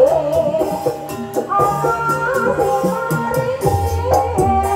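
Live ebeg dance music from a Javanese gamelan-style ensemble, with held pitched metallic notes, steady drumming and a singer's voice.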